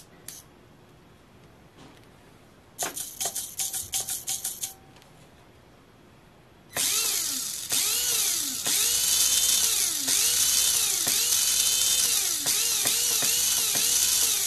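Kyosho Mini-Z MR-03 RWD's electric motor and rear drivetrain spinning the wheels with the car up on its stand in regular (full-power) mode: a whine that rises, holds and falls again about once a second as the throttle is worked over and over. Before that, a quick run of short clicks.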